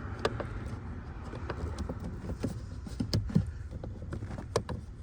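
Irregular plastic clicks and knocks from a replacement blend door actuator being turned and pushed into place in a tight space under a car dashboard, loudest about three seconds in, over a low steady hum.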